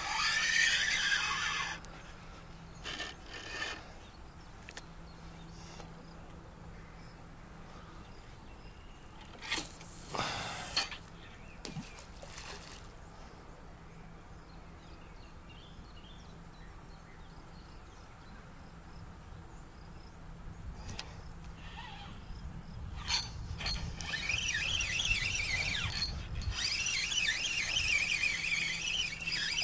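Birds chirping and calling by a river, loudest in the first couple of seconds and over the last several seconds, with a few brief swishes and knocks in between.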